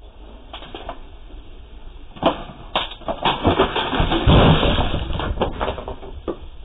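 Two sharp knocks, then a patio fire pit flaring up with a loud rushing whoosh and low rumble about four seconds in, as a plastic chair tips over backward onto stone paving.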